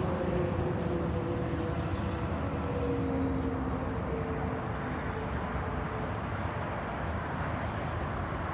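A steady outdoor rumble with a faint distant engine drone whose pitch slowly falls over several seconds.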